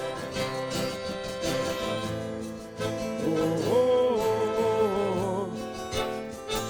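Live song accompaniment between sung lines: guitar playing, with a wavering melody line through the middle.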